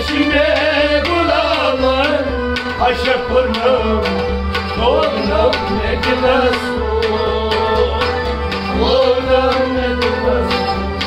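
An instrumental passage of Kashmiri folk music. Harmonium and a bowed sarangi play a sliding, ornamented melody over a held drone, with a hand drum keeping a steady rhythm.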